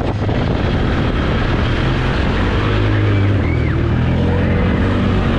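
Four-wheeler ATV engine running under load as the quad drives through shallow water, with the wheels churning and splashing water. The engine picks up a little about halfway through.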